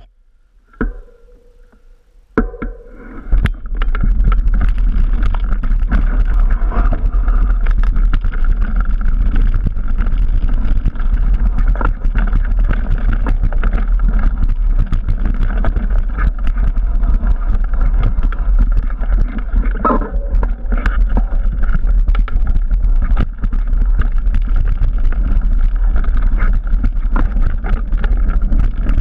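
Wind buffeting the helmet or handlebar camera's microphone and the Trek Remedy 9 mountain bike rattling and knocking over a rocky forest trail at speed, with many sharp knocks from bumps and stones. It starts about three seconds in, after a few clicks as the camera is handled.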